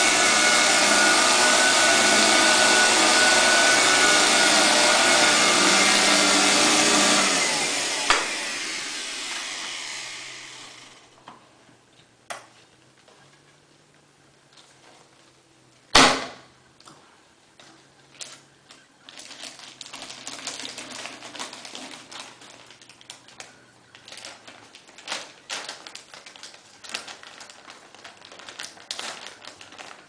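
Upright bagless vacuum cleaner running steadily, then switched off about seven seconds in, its motor winding down over a few seconds. After a couple of sharp clicks comes a loud clunk as the plastic dust cup is detached from the vacuum, followed by irregular crinkling and rustling as the debris-filled plastic bag is handled.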